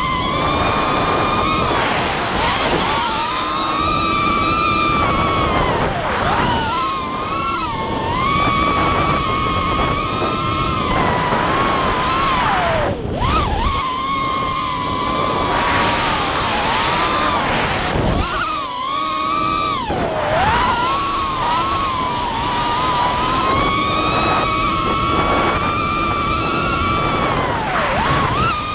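Quadcopter's brushless motors and propellers whining steadily, the pitch wavering with throttle and dropping sharply several times before climbing back.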